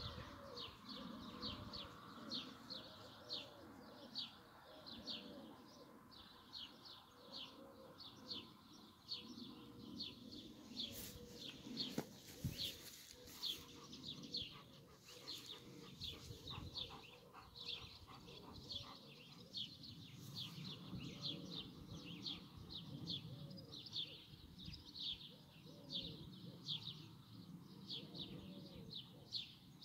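Outdoor birdsong. A small bird repeats a short high chirp about twice a second, and a dove coos softly and low underneath. A brief sharp knock comes about twelve seconds in.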